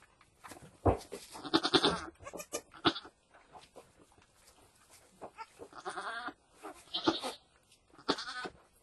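Goats bleating, a nanny goat and her newborn kid: several short calls, with a few soft knocks and rustles between them.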